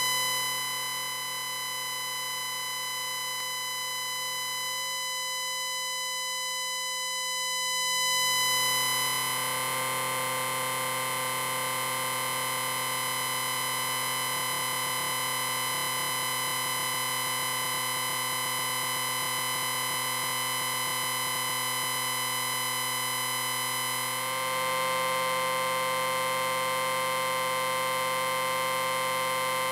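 Synthesized science-fiction "electric ring" sound effect: a continuous electric drone made of many steady held tones, swelling louder and brighter about eight seconds in and stepping up slightly again about twenty-four seconds in.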